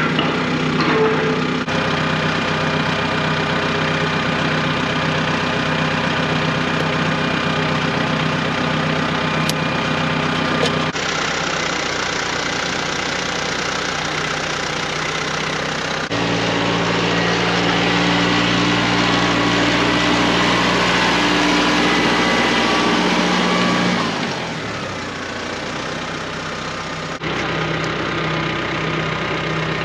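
Tractor engine running at idle, a steady low drone whose note changes abruptly at several points.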